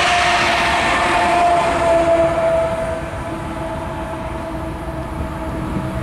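Rear pusher locomotive of a loaded oil train, a Union Pacific GE diesel, passing close by and moving away: engine, wheels and rails with a steady whine that drops slightly in pitch as it goes by. The sound falls off about three seconds in as the train recedes.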